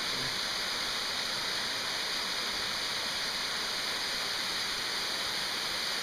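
Steady rushing of water from an ice-covered waterfall, an even, unbroken hiss.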